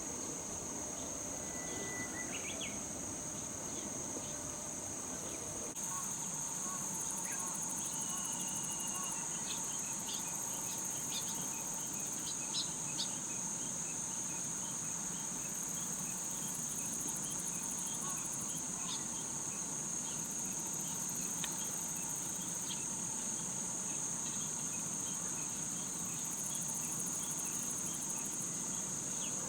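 Summer insect chorus: a steady, high-pitched continuous trilling that steps up a little in level about six seconds in, with a few short faint chirps scattered through it.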